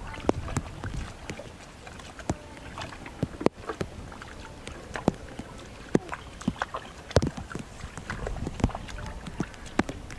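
Hands sloshing and squelching through shallow muddy water while grabbing fish, with irregular sharp splashes and slaps, the loudest a few seconds in and again around six and seven seconds.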